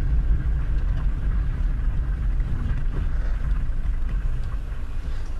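Steady low rumble of a moving car's engine and tyres on a wet road, heard from inside the cabin as a dashcam picks it up.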